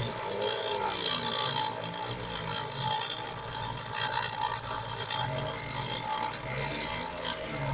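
Homemade mini CNC router engraving plywood: a small printer motor spins a teardrop Dremel cutter with a steady whine and cutting rasp, while the stepper motors hum in rising and falling pitches as the axes move.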